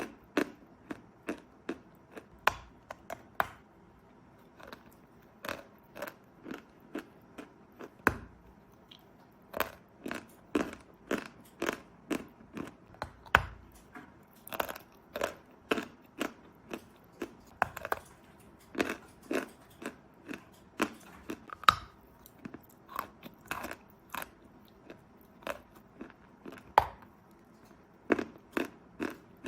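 Dry "Belaya Gora" (White Mountain) chalk being bitten and chewed: a long run of short, sharp, dry crunches, about one or two a second, with a few brief pauses.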